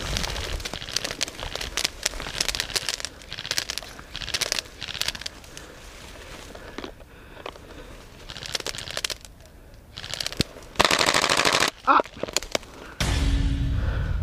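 Airsoft guns firing in rapid bursts of clicking shots. Near the end there is a loud rushing noise.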